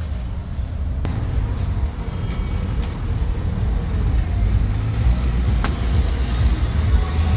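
Steady low rumble of road traffic, with two sharp knocks, one about a second in and one past the middle.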